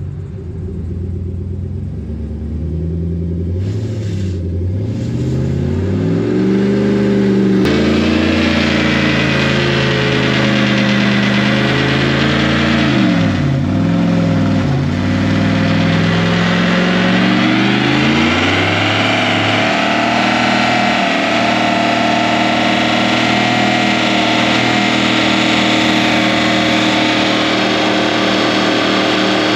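A 2500HD pickup's 6.0 Vortec V8 revving hard through a burnout, its pitch climbing and dipping for the first twenty seconds or so, then held high and steady. From about eight seconds in, the spinning rear tire adds a loud hiss over the engine.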